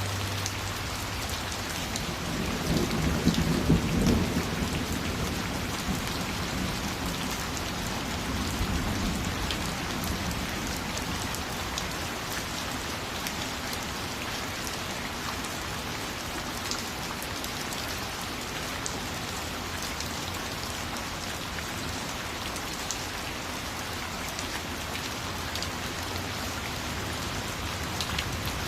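Steady rain falling, with a low roll of thunder a few seconds in and a fainter rumble a few seconds later.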